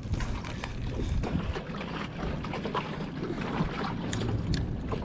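Wind buffeting the microphone over water sloshing against a boat's hull, with scattered sharp ticks throughout.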